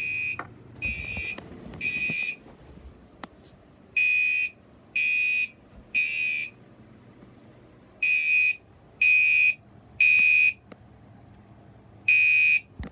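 Fire alarm sounding in the temporal-three evacuation pattern: a loud, high, buzzing tone in half-second blasts, three a second apart, then a pause of about a second and a half before the next three.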